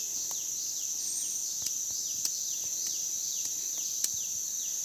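Forest insects droning steadily at a high pitch. A short falling call repeats about two or three times a second through it, with a few faint sharp clicks.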